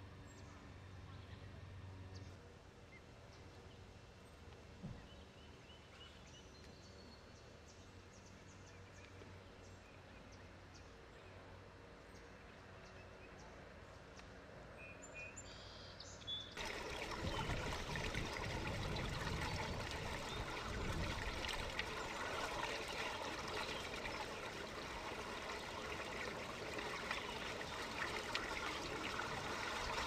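Faint outdoor quiet with a few small high chirps. After about sixteen seconds it cuts suddenly to a steady, louder sound of rushing, trickling water.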